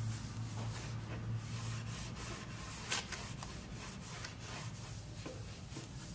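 A beeswax tack cloth rubbed in strokes over the smooth, polyurethane-finished wooden table top, wiping off the last dust before the final coat. One sharp click about three seconds in.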